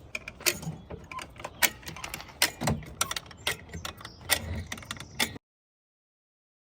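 Irregular sharp clicks, taps and knocks of hands-on handling work, with one duller thud near the middle; the sound cuts off abruptly about five seconds in.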